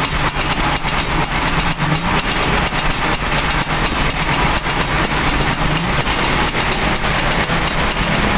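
Road and wind noise inside a car cruising at freeway speed. A steady low engine drone rises slightly a couple of times, over frequent short ticks.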